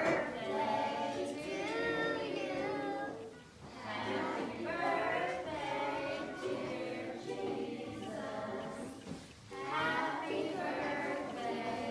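A small group of young children singing together, in phrases with two short breaks.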